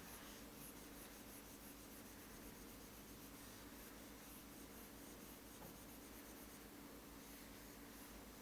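Faint scratching and rubbing of a pen on an interactive whiteboard screen while colouring in, over quiet room tone.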